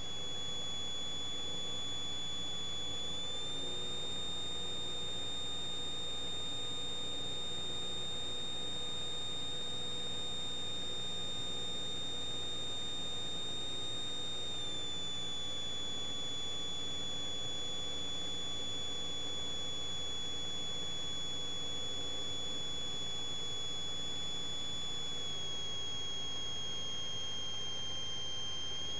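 Steady high-pitched electrical whine with fainter tones stacked above it, from a Cessna 172's engine-driven alternator carried into the intercom audio, its pitch following engine speed. It steps up a few seconds in, drops back about halfway, dips briefly near the end and rises again, as engine power is changed.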